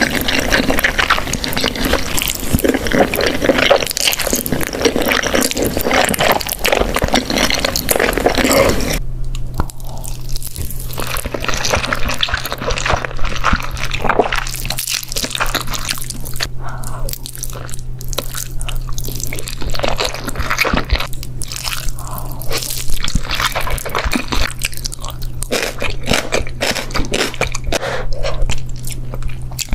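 Close-miked mukbang eating sounds of spicy instant noodles. The first nine seconds are a dense, continuous noise; then it cuts abruptly to separate wet chewing and biting sounds over a steady low hum.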